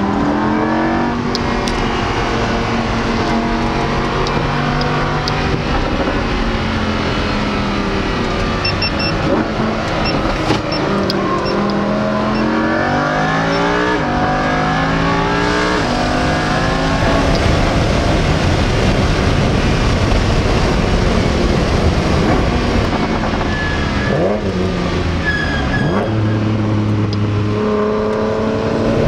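Lamborghini Huracán's V10 heard from inside the cabin, its pitch climbing through the gears and falling back again and again as the car is driven hard on track, over steady road and wind noise. Near the end a few brief high squeals come from the brakes of a BMW running just ahead, not from the Lamborghini.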